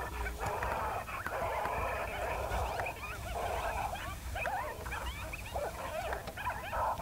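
Coyote pup distress sound played from a FoxPro Fusion electronic predator caller: a steady run of high, wavering whimpers and yips that repeat in short loops.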